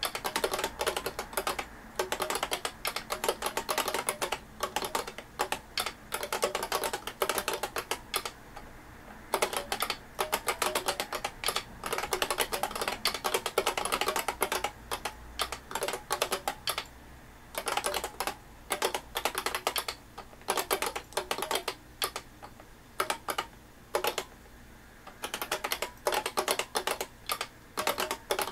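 IBM Beamspring keyboard from a 5251 terminal being typed on fast: dense runs of sharp key clicks, broken by a few short pauses, the longest about two-thirds of the way through.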